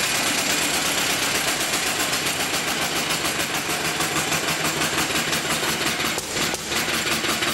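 Kubota Type CHC single-cylinder farm engine of about 1953 running on its own, a fast steady firing beat. The beat dips briefly twice about six seconds in.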